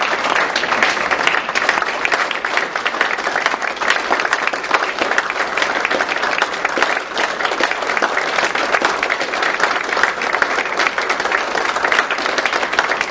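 Roomful of people applauding steadily, a standing ovation of sustained hand clapping.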